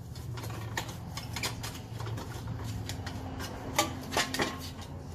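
A pry bar levering a 2000 Chevy S10 Blazer's wheel hub assembly free of the knuckle: a run of irregular metal clinks and knocks, the loudest a little after halfway.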